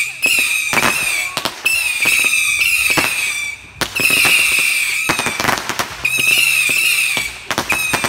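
Consumer fireworks firing in quick succession during a finale. Shrill whistling shots, each a wavering whistle lasting over a second, follow one another about every two seconds, with sharp bangs and crackles between them.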